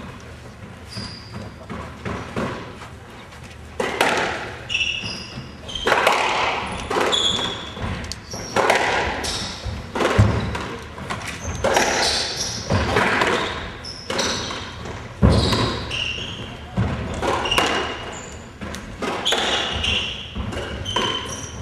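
Squash rally: the ball smacking repeatedly off rackets and the court walls, each hit echoing in the enclosed court, mixed with short high squeaks of court shoes on the wooden floor. The hitting starts about four seconds in.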